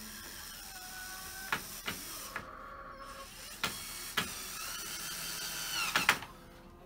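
Cordless drill driving screws into a wooden door frame: the motor whines in spurts with a brief pause about two and a half seconds in, then stops about six seconds in, with a few sharp clicks along the way.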